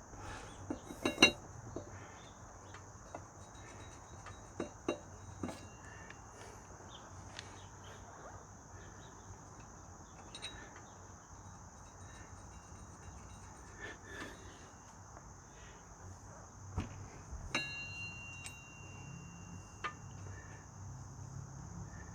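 A steady high insect chorus with scattered sharp metal clinks and knocks of hand tools and ATV parts being handled during reassembly of the rear hub. One clink past the middle rings on for a couple of seconds.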